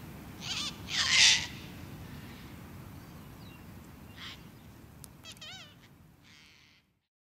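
Sulphur-crested cockatoo screeching harshly, the loudest screech about a second in, shorter ones around four seconds and near the end, with a wavering whistled bird call just after five seconds, over a low rumble. The sound cuts off abruptly just before the end.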